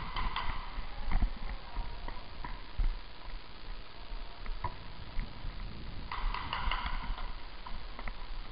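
Irregular sharp clicks and knocks of an indoor airsoft game. The loudest is a thud about a second in, with a quick run of clicks a little past the middle.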